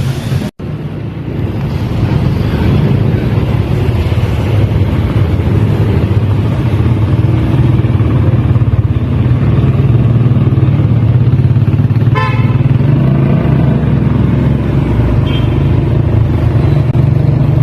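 Steady city street traffic noise: engines running with a low rumble, and a brief rapid rattle about twelve seconds in.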